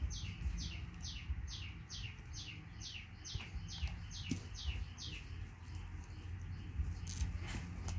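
A bird calling a regular series of short, high, downward-sweeping chirps, a little over two a second, stopping about six seconds in, over a low rumble.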